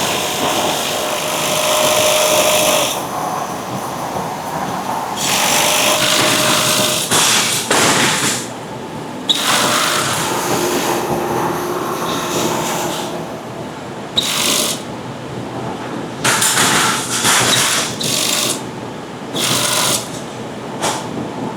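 Production machinery in a bedding factory running in stop-start bursts of one to several seconds, a dense noisy mechanical sound with brief pauses between runs.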